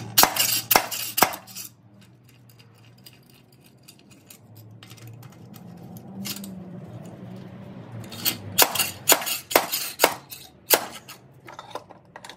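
Homemade slide hammer, a weight slid along a 3/8 in. all-thread rod against a washer and nut, clanking metal on metal as it knocks the front pump out of a Chrysler A-904 automatic transmission case. Three sharp strikes near the start, a lull, then a quicker run of about eight strikes in the last four seconds.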